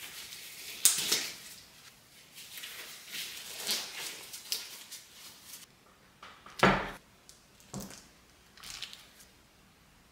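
Nitrile gloves rustling and snapping as they are pulled on, then a few knocks as a wax cutter blade is pushed down into a slab of candle wax, the loudest about two-thirds of the way through.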